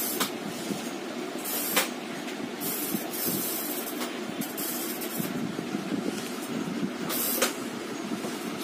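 A child's bicycle being pedalled over a hard tiled floor: its wheels rolling with a few sharp knocks and brief hissing rushes, over a steady hiss.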